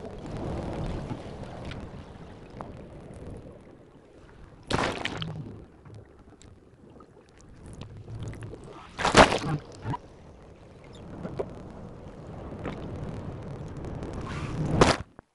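Sound recorded by a suction-cup DTAG on a humpback whale: water rushing and gurgling past the tag, with three loud rushing bursts about five seconds apart.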